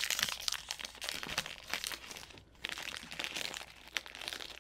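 Small foil snack wrapper crinkling as it is handled and opened by hand: an irregular run of crisp rustles and clicks.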